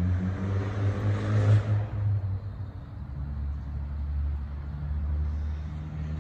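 A cat's brief hiss, swelling and fading about a second in, over a steady low engine-like hum.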